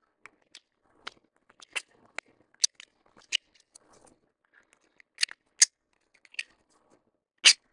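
Small 3D-printed plastic pegs and a printed tolerance test block clicking and tapping together as they are handled and pushed into the block's holes: a scattering of short, sharp clicks, the loudest near the end.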